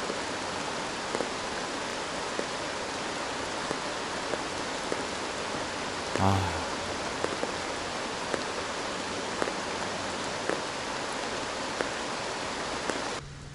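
Steady heavy rain falling, a dense hiss with scattered louder drop ticks; it cuts off shortly before the end.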